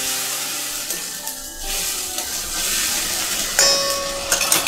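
Tomato purée sizzling as it fries in oil in a steel kadai, with a spoon stirring it. About three and a half seconds in, steel utensils clink together with a short metallic ring.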